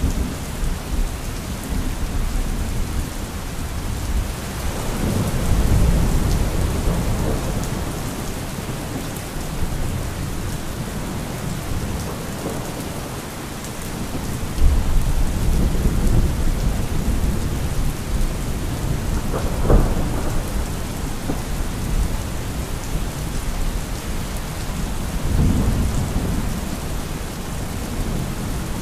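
Thunderstorm: steady rain with rolling thunder. Low rumbles swell several times, and a sharper crack of thunder comes about two-thirds of the way through.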